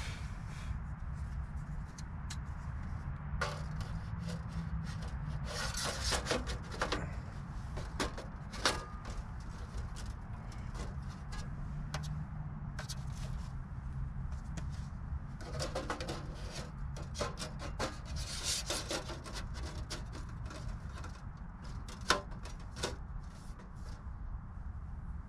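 Clinks, scrapes and rubbing of thin titanium stove panels being handled and fitted together while a collapsible wood stove is assembled, with two sharper clacks, about nine seconds in and near the end. A steady low rumble of distant highway traffic runs underneath.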